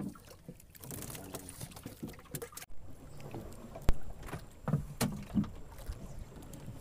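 Knocks and handling noise on a small outrigger boat as the fish-trap line is hauled over the side: one sharp click, the loudest sound, a little past halfway, then a few duller knocks.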